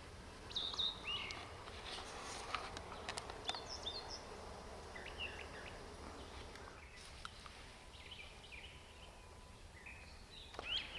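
Small songbirds chirping and calling in short, scattered notes, faint over a low steady background hiss.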